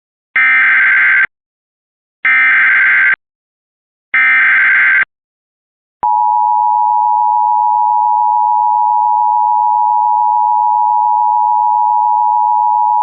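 Emergency Alert System header: three bursts of shrill digital data tones, about a second each with a second's gap between them, then from about six seconds in a single steady attention tone. They open a National Weather Service flash flood warning.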